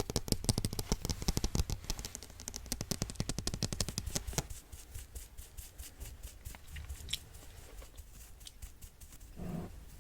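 Rapid close-up tapping and clicking, dense for about the first four seconds, then thinning out to scattered taps.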